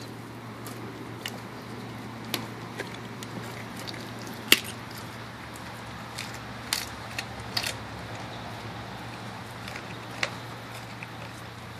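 German Shepherd chewing a raw chicken drumstick, the bone crunching and cracking in irregular bites, the loudest crunch about four and a half seconds in.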